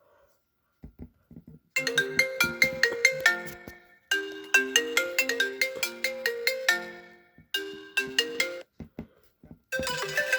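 iPhone 8 Plus ringtone playing: a melody of short, bright plucked notes in repeated phrases with brief pauses between them, starting about two seconds in after a few faint clicks. Near the end a different, denser ringtone starts.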